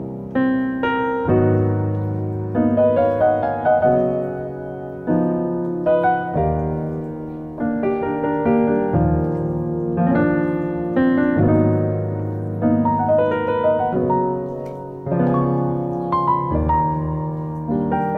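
Solo piano background music: chords struck about every second and a half, each ringing and fading until the next.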